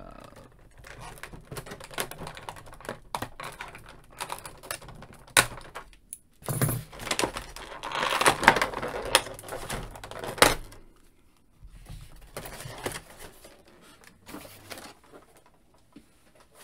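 Clear plastic blister tray and packaging being handled as an action figure is worked free: many small clicks and crinkles, with a few seconds of louder crackling about halfway through.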